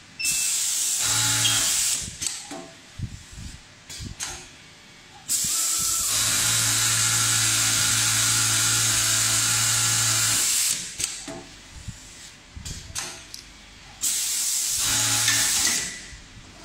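Industrial sewing machine with an automatic collar top-stitch attachment running in three bursts: briefly at the start, for about five seconds in the middle, and briefly again near the end. Each run carries a steady hum under a strong hiss, with light clicks and handling between the runs.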